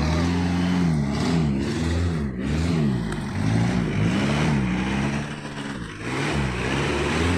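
Jeep CJ7 engine under load off-road, revving up and down as the throttle is worked, its pitch rising and falling about once a second.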